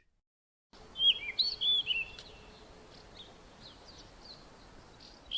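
Female mocking cliff chat singing short whistled phrases in imitation of a Cape rock thrush's song. The phrases are loudest about a second in, then give way to fainter, scattered notes.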